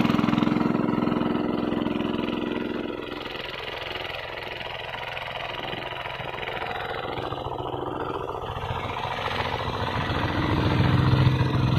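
Walk-behind hand tractor's engine running steadily as it works the soil. It is loud at first, fades about three seconds in, and grows louder again near the end.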